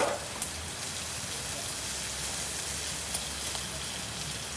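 Food sizzling on a hot griddle: a steady hiss, with a sharp click right at the start and a fainter one about three seconds in.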